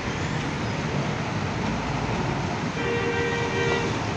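Bus engines running at a terminal exit, with a two-tone vehicle horn sounding for about a second near the end.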